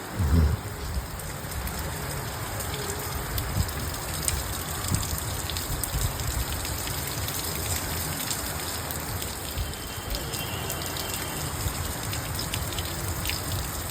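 Rain falling steadily: a dense hiss with many sharp ticks of drops striking surfaces. A brief low thud comes right at the start.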